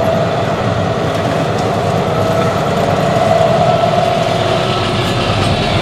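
Steady engine drone with a constant mid-pitched whine running through it, heard inside a sailboat's cabin.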